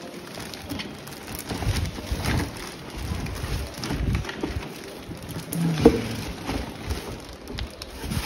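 Clear plastic wrapping crinkling and a cardboard box rustling and scraping as a plastic toy ride-on car is handled and lifted out, with irregular dull knocks and one louder knock about six seconds in.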